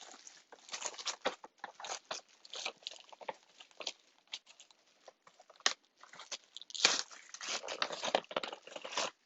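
Product packaging being opened by hand: irregular crinkling, rustling and tearing, with a louder burst of crackling about seven seconds in.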